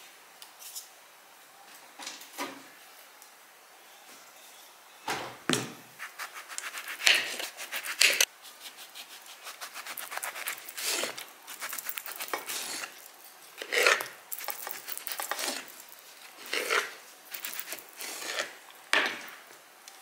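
Kitchen utensils and dishes being handled: an irregular run of knocks, clinks and scrapes on a wooden surface, with stretches of quick fine ticking and a few louder knocks.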